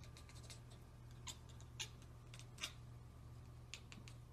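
Domestic cat chattering: short runs of quick, sharp clicking 'kekeke' sounds, the chatter a cat makes when it spots a bird or insect it cannot get to.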